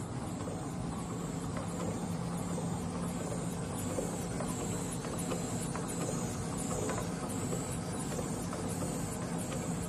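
Lollipop wrapping machine running: a steady motor hum with a regular light clicking of its mechanism, about two clicks a second.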